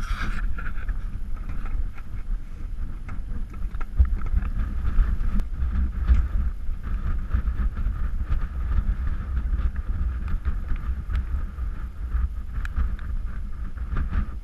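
Wind buffeting the camera's microphone: a steady, gusting low rumble, with faint scattered clicks over it.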